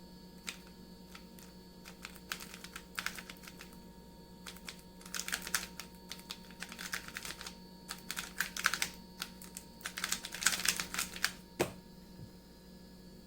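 Plastic 3x3 speed cube being turned during a solve: sparse clicks at first, then quick clattering runs of turns with short pauses between them.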